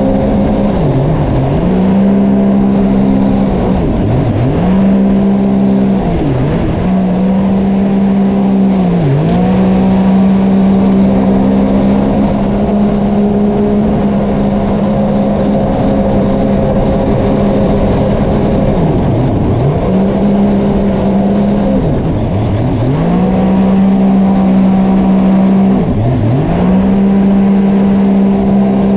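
Sea-Doo personal watercraft engine running hard at high revs. Its pitch drops sharply and climbs straight back about seven times, with a long even stretch at full throttle in the middle.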